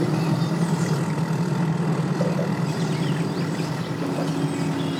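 An engine running steadily at low speed, a low pitched hum that drops slightly in pitch about four seconds in.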